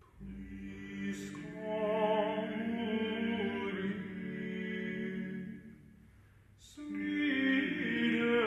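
Several male voices singing long held notes in close harmony, with vibrato. The chord fades out about five and a half seconds in, and the voices come back in a little over a second later.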